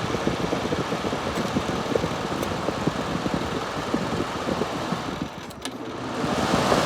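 Fan motor of a vintage Gibson Air Sweep 6,000 BTU window air conditioner running loud with a fast, steady rattle, which the owner takes for a motor in need of lubrication. The sound dips briefly about five and a half seconds in, then comes back louder.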